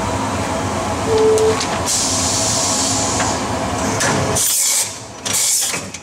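CNC milling machine running with a steady hum and a short beep about a second in. Near the end the hum drops away and two short hisses follow, as the machine goes into an automatic tool change.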